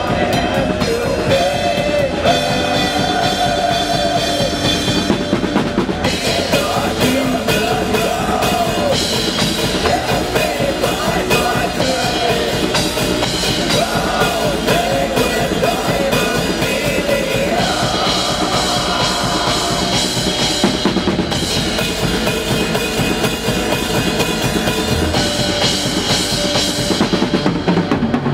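Post-black-metal song with the drum kit played fast: rapid blast-beat strikes and cymbal wash under a sustained, wavering melody line.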